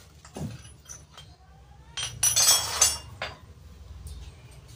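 A clatter of clinking metal for about a second, starting about two seconds in, with a single duller knock just before.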